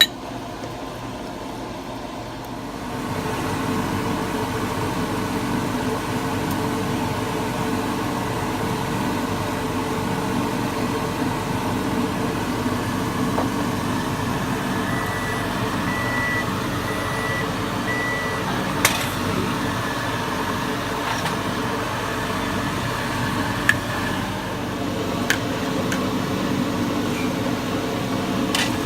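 A steady machine hum from a kitchen appliance comes on about three seconds in and keeps running. Partway through there is a run of four short high beeps, and there are a few sharp clicks near the end.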